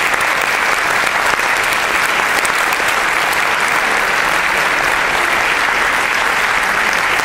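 Audience applauding steadily, a dense even clapping that holds its level throughout.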